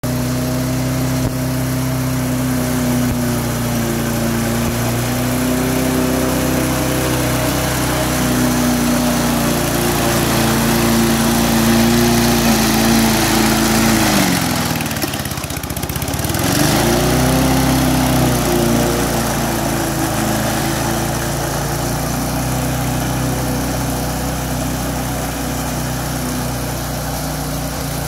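Remote-controlled lawn mower's engine running steadily as it mows grass. About halfway through, the engine speed sags sharply for a second or two, then picks back up.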